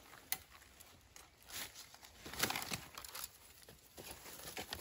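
Dry leaf litter and twigs crackling and rustling under someone moving across the forest floor, in a few irregular bursts with one sharp snap near the start.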